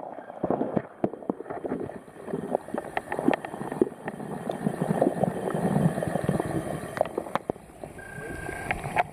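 Water sloshing and gurgling around a camera held underwater, with many irregular clicks and knocks from the camera being handled.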